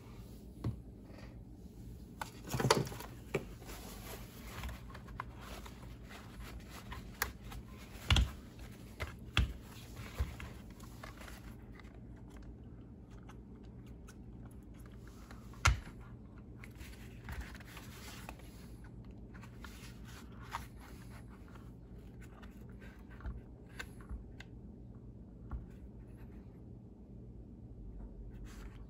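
Hands working on a plastic RC car chassis: scattered clicks and knocks of plastic parts and tools, with a short scraping rustle about three seconds in and a few sharper knocks, the loudest near the middle.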